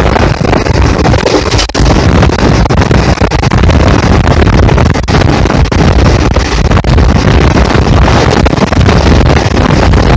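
Chennai–Hazrat Nizamuddin Garib Rath express train running at speed, heard from an open doorway: loud, steady running noise from the wheels and rails, with heavy wind buffeting the microphone.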